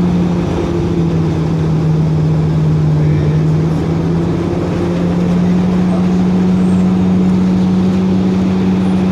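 Cabin drone of a 2004 Orion VII diesel-electric hybrid bus under way: a steady, loud hum whose pitch dips slightly about a second in, then climbs back and holds.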